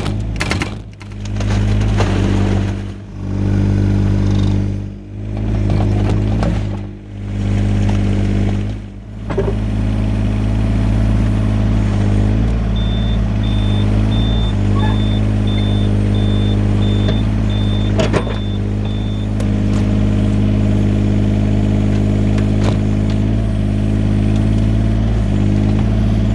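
Yanmar ViO17 mini excavator's small diesel engine running under hydraulic load. For the first nine seconds or so it swells and eases about every two seconds as the machine works, then it holds steady. A series of short high beeps, about two a second, sounds over it in the middle.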